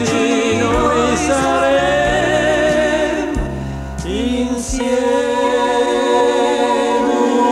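Italian pop duet recording from 1982: voices singing with vibrato over backing music. About four seconds in they give way to held instrumental chords.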